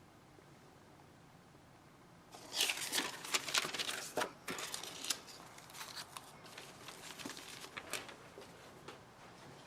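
Model-kit packaging being handled: crinkly rustling and crackling of paper, plastic and cardboard that starts about two seconds in, loudest at first, then lighter and scattered.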